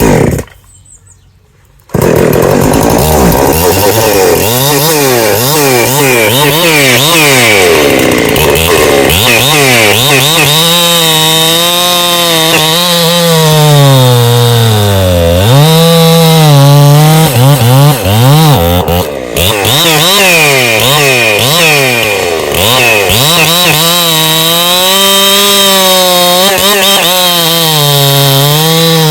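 Ported Husqvarna 365 Special two-stroke chainsaw cross-cutting a log near full throttle, its engine note wavering and dipping as the chain loads up in the wood, then picking back up. A short break of under two seconds comes near the start before the saw runs on.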